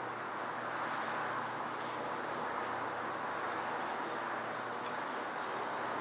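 Distant city road traffic as a steady, even rush. A small bird chirps in short high notes over it, from about a second and a half in until near the end.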